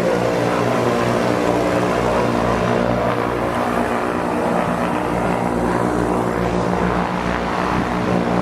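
Cessna 172's piston engine and propeller running steadily, with an even low throb.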